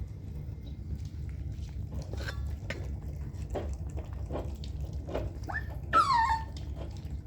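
Dachshund puppies feeding: a run of small clicks and smacks, a few brief squeaks, and a loud high puppy whine about six seconds in that falls in pitch, over a steady low hum.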